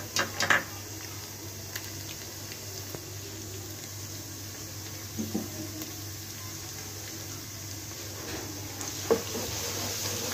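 Chopped garlic frying in hot oil in a non-stick kadai: a steady light sizzle that grows a little louder in the last couple of seconds as a spatula stirs it. There are a few sharp knocks just after the start, and a clack of the spatula against the pan about nine seconds in.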